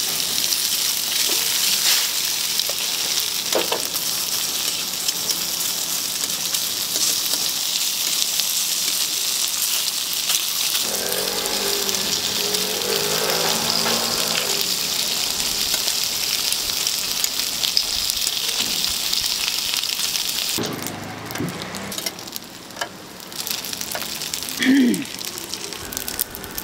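Mandu (Korean dumplings) pan-frying in oil on a flat steel griddle, a steady sizzle. The sizzle drops away about twenty seconds in, leaving a quieter stretch with a few light clicks.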